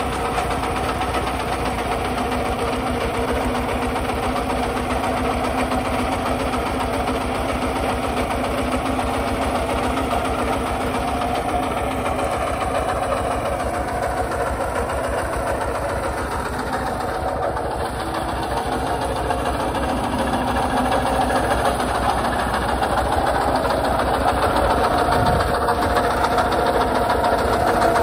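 Kubota RT140 single-cylinder diesel engine on a walk-behind tractor, running steadily with a rapid, even knock while it pulls a plough through dry soil. It grows louder near the end.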